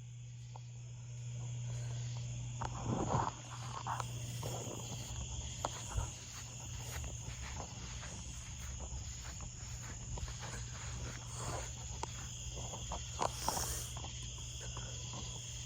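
Crickets chirping steadily over a low, steady hum, with scattered clicks and rustles throughout.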